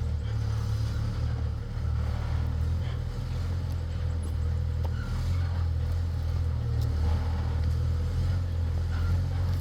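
A motor vehicle's engine running steadily, a deep low rumble that stays even throughout, with a few faint short chirps now and then.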